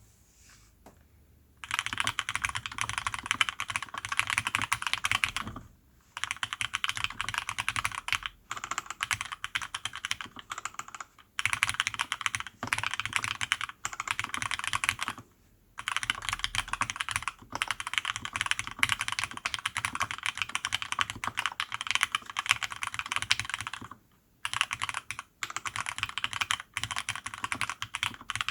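Fast typing on a TX65 custom mechanical keyboard with PBT keycaps, in runs of a few seconds broken by short pauses, after a nearly quiet second and a half at the start.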